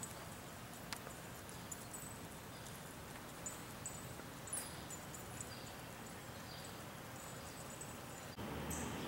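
Faint outdoor ambience: a steady low background rumble with scattered brief, high-pitched chirps and a single click about a second in. The background noise jumps louder near the end.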